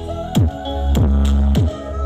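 Electronic dance music played loud through a large 'horeg' sound system: booming kick drums that drop in pitch and a long, heavy deep-bass note.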